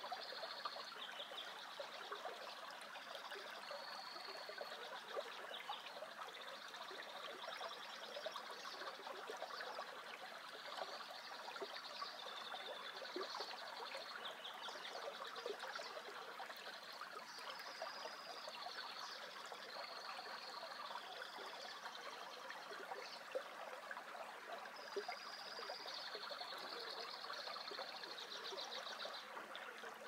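Shallow creek water trickling steadily over rocks and snowy debris. Over it a songbird sings long runs of high, rapid trills that change pitch from phrase to phrase.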